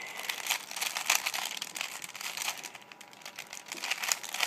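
Plastic Rubik's Cube layers being twisted in quick succession, a dense irregular run of small clicks and rattles with some rustling.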